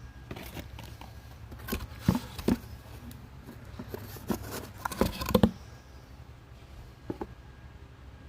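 Handling noises: a run of irregular clicks and knocks, loudest about two seconds in and again around five seconds, with one more near the end, over a steady low hum.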